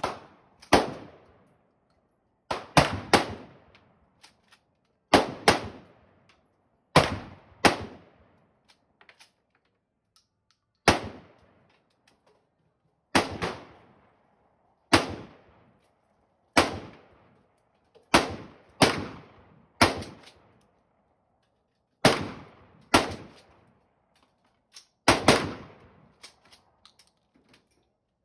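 Gunshots on a shooting range: about twenty sharp shots at irregular intervals, several in quick pairs, each followed by a short fading echo.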